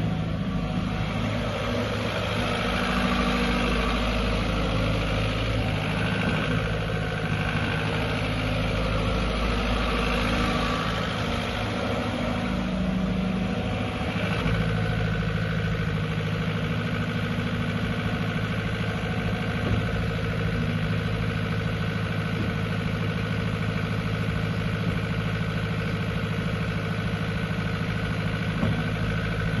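Diesel engine of a 2017 JCB 86C-1 midi excavator running. Its pitch and level shift through the first half, then it runs steadily from about halfway on.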